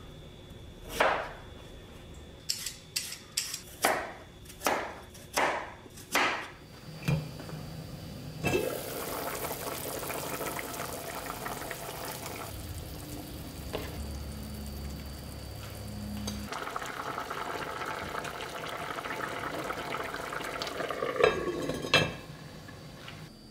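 Kitchen knife cutting daikon radish on a bamboo cutting board, about ten sharp knocks. Then a pot of braised beef rib broth simmering steadily as radish chunks, carrots and mushrooms are dropped in, and the enamelled pot's lid goes on with a couple of clunks near the end.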